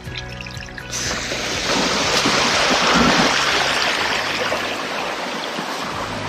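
Background music over the steady rush of a shallow rocky stream. The water noise comes in abruptly about a second in and stays loud.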